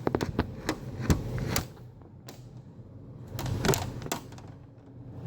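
A quick run of sharp clicks and taps, then a few scattered ones, as a stiff wire is fed down a car's sunroof drain tube and worked through the rubber grommet in the door jamb.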